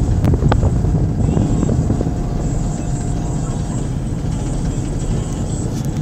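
A car driving along a road, heard from inside: a steady low rumble of engine and tyres, with a few sharp clicks about half a second in.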